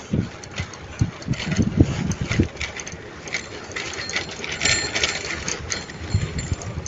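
Bicycle ride noise: irregular rattling clicks over uneven low rumbling, wind buffeting the microphone.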